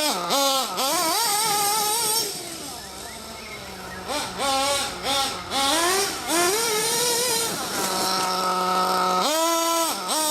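RB K10 nitro engine of an Ofna Dominator RC monster truck, revved up and down in repeated short blips of the throttle. The revs drop back and hold steady for a few seconds in the middle, then pick up again, and near the end they climb sharply.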